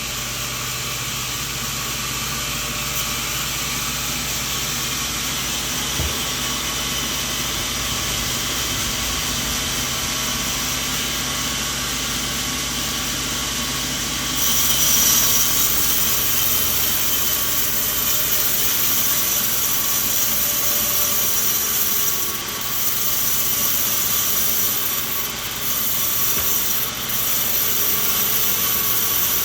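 Sawmill machine running and sawing a coconut log, a steady mechanical noise. About halfway through it gets louder and higher, and it drops briefly a few times near the end.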